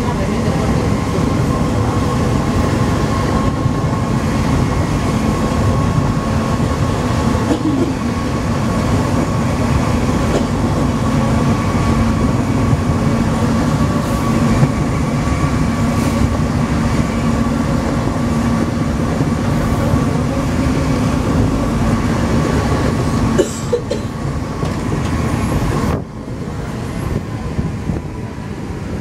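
Alstom NS-16 rubber-tyred metro train running between stations, heard from inside the driver's cab: a steady rumble with a steady motor whine over it. The sound drops suddenly twice near the end, first about 23 seconds in and again about 26 seconds in.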